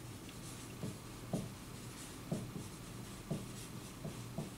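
Dry-erase marker writing on a whiteboard: a string of short, irregular pen strokes and taps, roughly one a second, over a steady low room hum.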